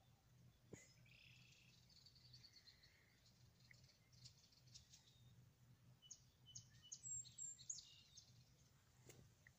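Faint birds chirping outdoors: scattered high chirps and a short trill, with a cluster of sharper chirps about seven seconds in, over a low steady hum.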